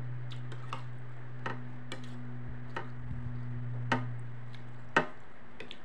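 A metal spoon clicking sharply against a bowl now and then while eating soup, irregularly spaced, the sharpest click about five seconds in. Under it runs a steady low electrical hum that cuts off at about the same moment.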